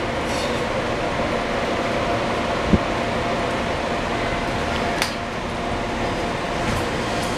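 Steady hum of a Keikyu 1500 series train car's air conditioning and onboard equipment, heard inside the car while it stands at a platform. There is a low thump nearly three seconds in and a sharp click about five seconds in.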